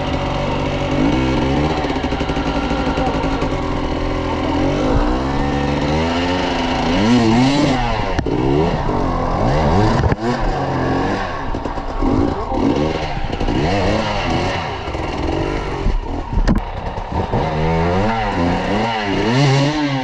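Enduro dirt bike engines running, steady at first and then revved over and over in rising and falling blips as the bikes are worked up a muddy stream gully.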